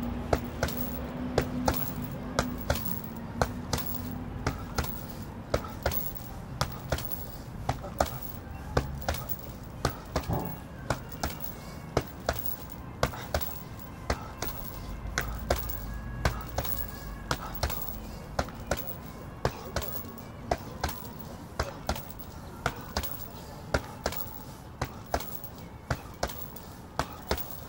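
Boxing gloves striking a hanging heavy punching bag: a string of sharp thuds, about one or two a second, in single punches and quick pairs.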